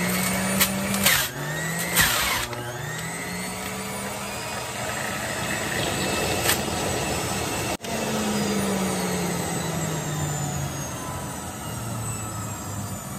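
Breville centrifugal juicer motor running as it shreds apples. The pitch dips under load, with a few sharp knocks early on. From about eight seconds in, the pitch falls steadily as the juicer slows down.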